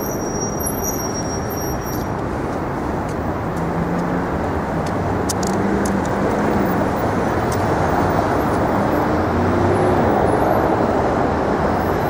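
Steady road traffic on a busy city street: cars and other vehicles running past, growing a little louder toward the end.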